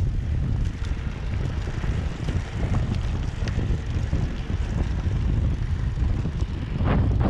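Wind buffeting the microphone of a camera mounted on a moving road bike: a steady low rumble with faint scattered ticks, and a louder whoosh near the end.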